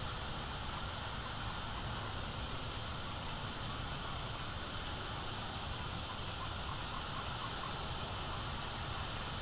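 Steady outdoor background hiss from an open-air nest-camera microphone, even throughout, with a short run of about six faint quick notes past the middle.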